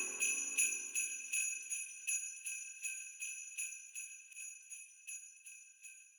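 Jingle bells shaken in an even rhythm, about three shakes a second, fading out steadily.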